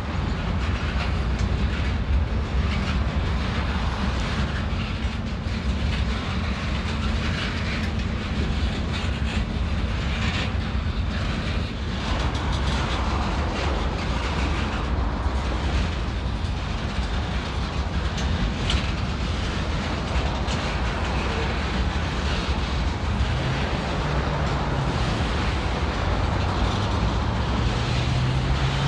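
Freight train of boxcars rolling past: a steady rumble of wheels on rail with repeated clicks as the wheels cross rail joints.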